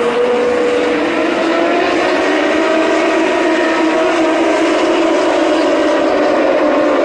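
Racing motorcycle engines heard from the trackside: a loud, steady drone of several engine notes that slowly rise and fall as the bikes pass.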